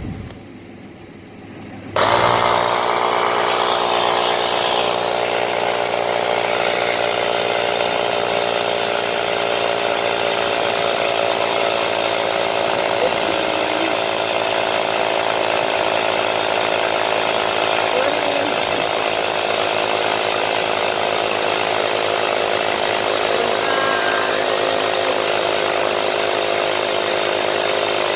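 Cookan portable tire inflator's small electric compressor switching on about two seconds in and running steadily, pumping up a flat wheelbarrow tire toward its preset 30 psi shut-off.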